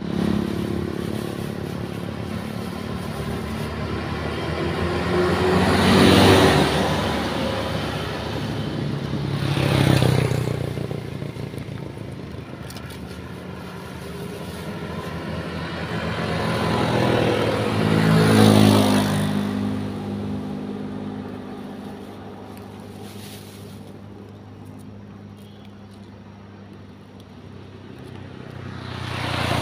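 Motor vehicles passing on a nearby road. Engine and tyre noise swells and fades several times, with the loudest passes about 6, 10 and 18 seconds in and another building near the end.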